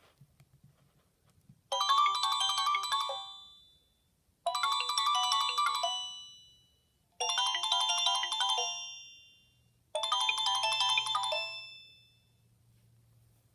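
A Nokia ringtone played through a Sony Ericsson W595 phone's loudspeaker. It is a short, bright electronic melody that starts about a second and a half in and repeats four times. Each phrase ends in a fading ring.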